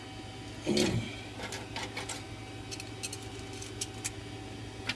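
Steady electrical hum of an idle Leapfrog 3D printer, with scattered light clicks and taps of small printed plastic parts being handled, and a short louder sound about a second in.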